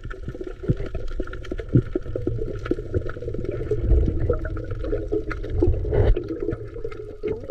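Seawater sloshing and gurgling close by, with a steady low rumble underneath and scattered small clicks.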